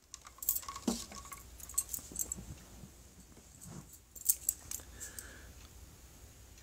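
A scattered series of light clicks, taps and clinks close to the microphone, bunched near the start and again about four seconds in, as of small objects being handled.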